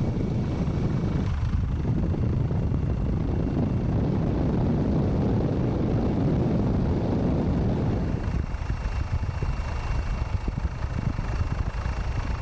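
A vehicle engine running with a steady low rumble, turning rougher and more uneven about eight seconds in.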